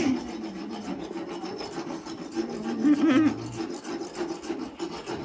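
Equine dental float filing down a horse's teeth: a continuous rasping and grinding of the tool against the teeth, louder for a moment about three seconds in.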